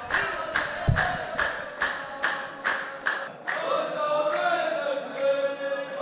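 A row of men chanting a muhawara verse in unison, clapping together about twice a second. The clapping stops about three and a half seconds in while the chant goes on.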